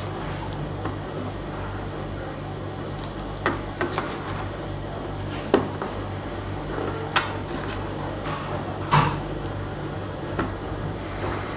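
Kitchen knife cutting raw chicken meat off the bone on a plastic cutting board, with a few short, sharp clicks and taps of the blade against the board. A steady low hum runs underneath.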